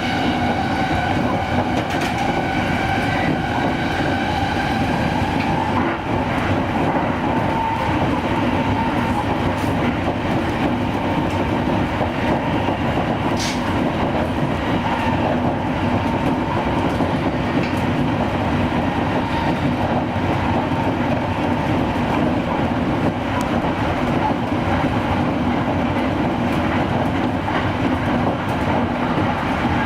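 Shonan-Shinjuku Line electric commuter train running, heard from aboard: a rising motor whine that fades out within the first few seconds, then the steady rolling noise of wheels on rails, with one sharp click about thirteen seconds in.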